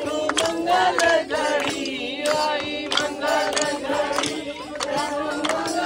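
A group of women singing a devotional chant together, with sharp hand claps scattered through it.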